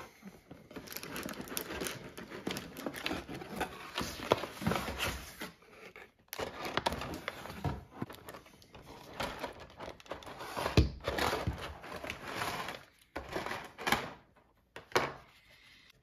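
Cardboard box and clear plastic packaging tray being handled and unpacked: irregular rustling, scraping and crinkling with scattered clicks and knocks, pausing briefly twice.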